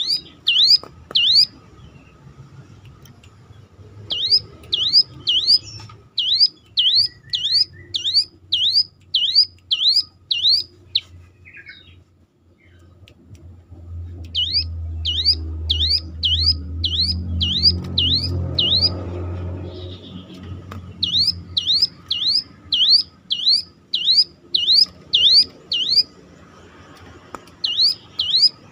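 Ciblek gunung (a mountain prinia) calling in long runs of repeated siren-like notes, each a quick whistle that rises and falls, about two or three a second, with short pauses between runs. A low rumble swells underneath around the middle.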